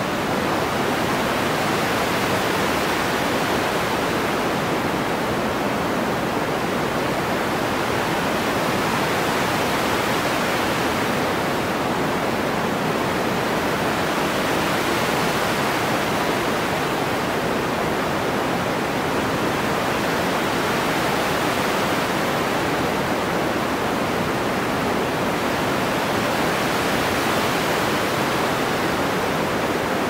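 Synthesized noise played through an EQ whose low-pass filter is swept by hand between about 1 and 2 kHz. The steady hiss swells brighter and duller about every six seconds, imitating ocean waves rolling in and out.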